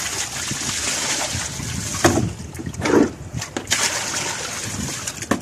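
Water poured out of a plastic bucket, splashing and running onto a concrete floor, with a couple of brief bumps about two and three seconds in.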